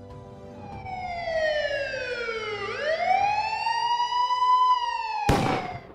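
A siren wailing: one long tone that slides down, then sweeps back up and holds high before sagging slightly, over soft background music. A short burst of noise cuts in near the end.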